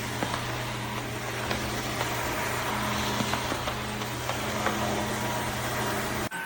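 Dreame H12 Pro cordless wet-dry vacuum running: a steady motor hum and whir with a few small clicks, cut off abruptly near the end and replaced by a steadier sound with a high whine.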